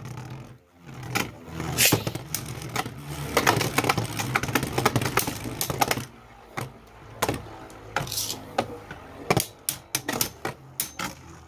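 Two Beyblade Burst spinning tops whirring in a plastic stadium, clattering against each other and the stadium walls with rapid sharp clicks. The clashing is densest in the first half and thins to separate knocks after about six seconds.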